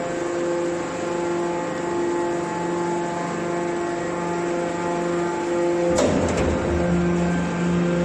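Hydraulic scrap metal baler's power unit running with a steady pitched hum. About six seconds in, a sudden clunk, then a low rumble under the hum as the machine moves.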